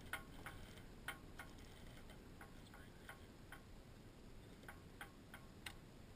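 Near silence with faint, irregular clicks and ticks, about two a second, pausing briefly near the middle.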